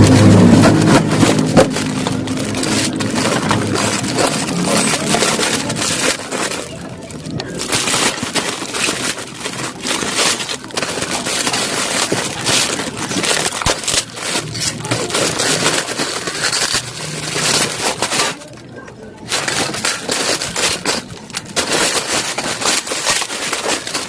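A parcel's packaging being torn open and crumpled by hand: continuous crinkling and ripping, with brief lulls about seven and nineteen seconds in.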